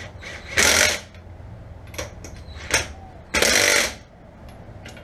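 Cordless impact tool running wheel nuts onto a car wheel in two short bursts of hammering, about a second in and again near three and a half seconds, with light clicks of the socket between them. The nuts are only being nipped up, not torqued.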